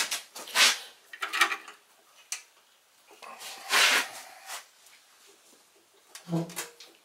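Metal clanks and scrapes as the belt tensioner spring and pulleys of a Bolens 824 snowblower are worked by hand: several short separate clatters, with a longer scrape about four seconds in.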